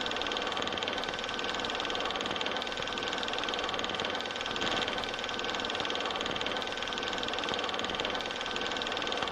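Steady, unchanging mechanical-sounding drone with hiss and a faint high steady tone.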